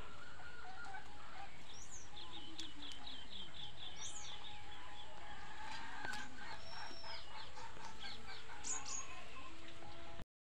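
Birds chirping and calling in a village yard: short whistled slurs and scattered chirps, with a quick run of high chirps about two to three seconds in. The sound breaks off suddenly near the end.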